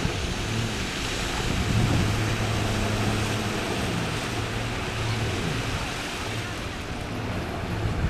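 Jet ski engine running on the water, a steady low drone that shifts a little in pitch as the craft turns, over a hiss of wind and small waves.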